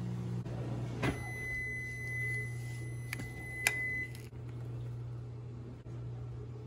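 Microwave oven's end-of-cycle beep, one steady high tone lasting about three seconds, signalling that the butter has finished melting. A few sharp clicks fall during the beep, over a steady low hum.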